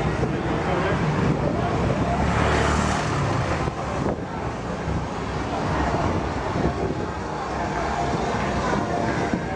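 A motor scooter passes close by. Its engine noise swells about two seconds in and fades by about four seconds, over steady street noise.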